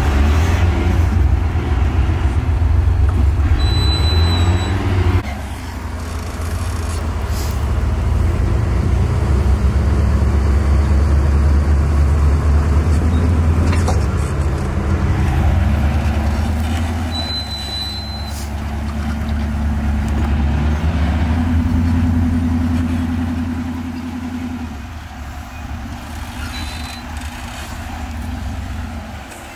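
Off-road vehicle engine running at low revs while rock crawling, its revs rising and falling. A few short high squeaks come through, about four seconds in, at about seventeen seconds, and near the end.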